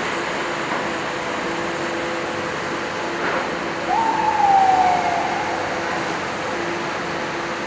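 Diesel engine of an old FMC Link-Belt crawler crane running steadily with a constant hum. About four seconds in, a short falling whine lasting about a second rises over it and is the loudest sound, with a single knock just before.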